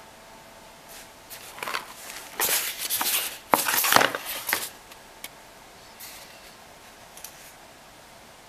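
A cluster of short scraping, rustling noises between about one and five seconds in, then a few faint ticks over a steady low hiss.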